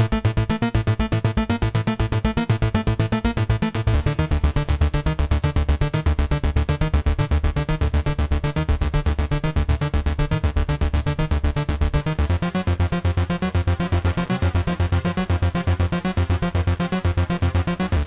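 Arturia Analog Lab V synth preset "5x7x303" playing a looping 303-style sequence: the same pattern runs twice at once, one copy on five steps and the other on seven, so the two drift against each other over a steady, fast pulse of bass notes. The tone grows brighter about four seconds in.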